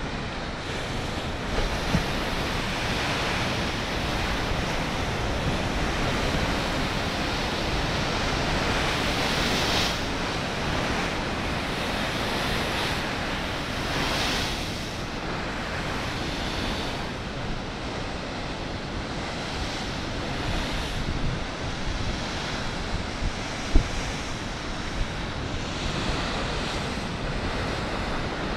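Rough winter sea at high tide, waves surging and breaking against a concrete sea wall in a continuous rush of water that swells louder a few times as waves break. Wind noise on the microphone runs under it, with a few brief thumps.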